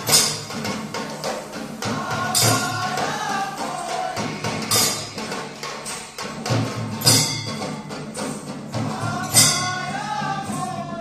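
Live percussion-led music for a stage dance: drums with a loud crashing strike about every two and a half seconds over steady jingling, and a voice singing in short phrases.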